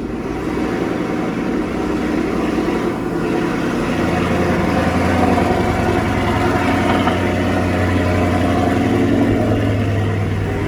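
2019 Dodge Charger Scat Pack's 392 (6.4-litre) HEMI V8, with a Corsa exhaust, idling high just after a cold start. The note settles lower about four seconds in.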